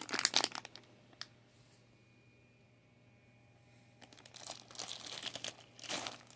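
Toy packaging being handled, crinkling: a short burst at the start, a single click a little over a second in, then a longer stretch of crinkling from about four seconds in.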